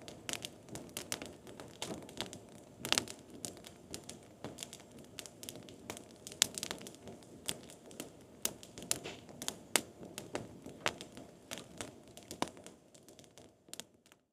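Firewood burning in a campfire: irregular sharp crackles and pops over a steady low rush of flame, fading out near the end.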